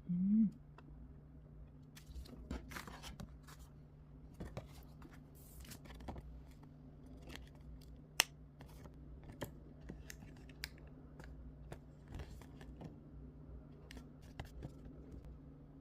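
Hands opening and handling the sealed packaging of a movie seal sticker pack: scattered crinkles, small tears and clicks of paper and plastic, over a faint steady hum. A short rising tone at the very start is the loudest moment.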